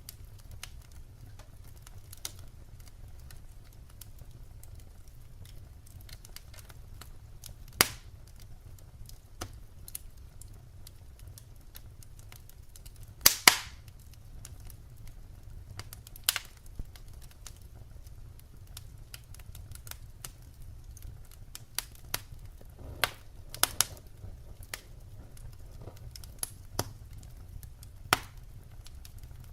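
Wood fire crackling, with sharp irregular pops and snaps from the burning logs, the loudest a quick double pop about halfway through, over a low steady rumble.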